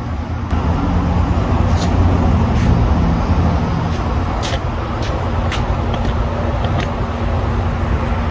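Steady low rumbling noise, with several short sharp clicks scattered through it.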